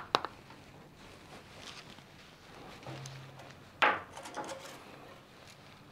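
Light clicks and knocks of small engine parts being handled during reassembly, with a sharper clatter about four seconds in followed by a few softer taps.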